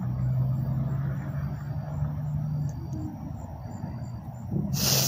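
A vehicle engine idling with a low, steady hum. Near the end a short, loud hiss cuts across it.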